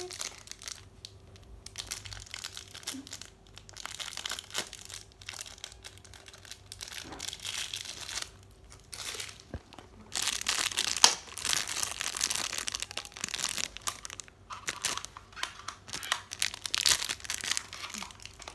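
Crinkly pink wrapper of an L.O.L. Surprise doll ball being crumpled and peeled open by hand, crackling in irregular bursts. It is loudest from about ten seconds in, with one sharp crackle.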